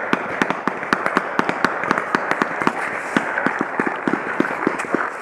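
Paintball markers firing: a rapid, uneven run of sharp pops, several a second, over a steady hiss.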